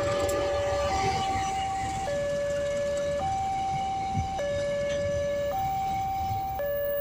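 Railway level crossing warning alarm sounding an electronic two-tone signal, switching between a lower and a higher tone about once a second. Under it is the rumble of a ballast train's hopper wagons rolling past on the rails, with a single clank about four seconds in.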